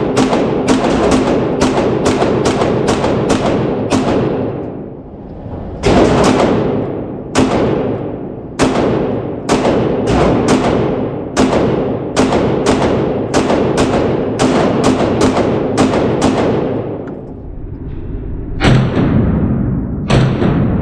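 Glock 17 9mm pistol fired in quick strings, about three shots a second. Each shot is followed by a long echo, with brief pauses between strings.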